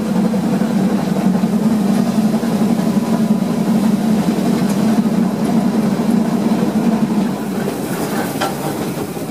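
Narrow-gauge steam train hauled by locomotive 99 236 running along the track, heard from on board just behind the engine: a steady running rumble that eases about seven and a half seconds in, with a few sharp clicks of the wheels near the end.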